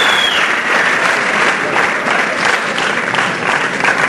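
Concert audience applauding, a dense steady clapping. A thin, steady high tone stops within the first half second.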